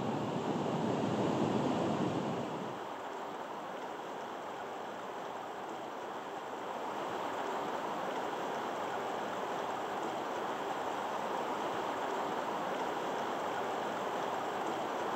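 Steady outdoor rushing noise with no distinct events, a little louder for the first two seconds or so.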